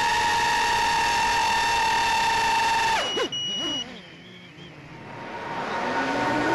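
Brushless motors of a Tarot TL130H1 micro FPV racing quadcopter whining steadily at high throttle. About three seconds in the throttle is chopped and the whine sinks away sharply to faint air noise, with a short high beep from the drone's buzzer, then the motors spool back up with a rising whine near the end.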